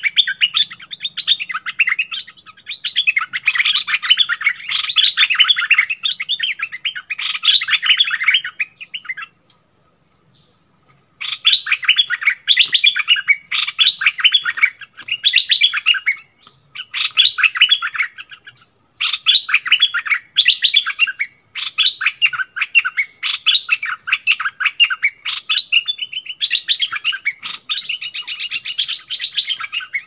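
Bulbuls singing in bursts of rapid, chattering notes, a caged decoy bird and a wild bird calling back and forth in a territorial duel. The song stops for about two seconds a third of the way through, then resumes.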